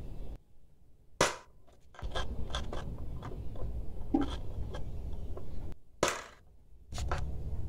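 Hammer blows on a flat screwdriver braced against a blender's worn drive coupling (pinion), knocking it round to unscrew it from the base: two sharp, loud cracks about five seconds apart, with lighter taps and clicks between.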